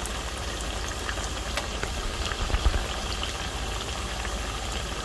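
Hot oil sizzling and crackling steadily around batter-coated sweet potato slices as they deep-fry, with a low hum underneath.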